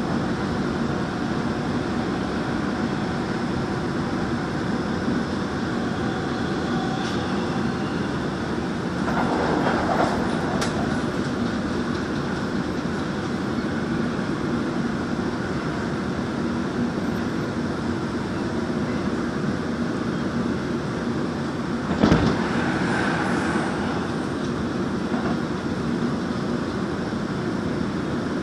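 Gwangju Metro Line 1 train running at speed, a steady rumble of wheels on rail heard from inside the car. About twenty-two seconds in comes a single sharp knock, the loudest moment.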